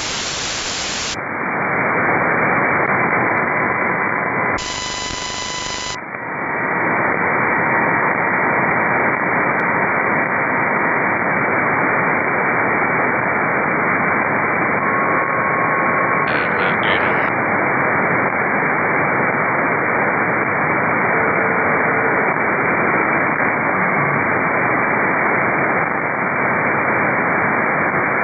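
Steady static hiss from an RTL-SDR dongle receiver tuned to frequencies with no signal on them. About a second in the hiss turns duller as the receiver switches to a narrow 2.4 kHz sideband filter. A few faint short whistles sound now and then.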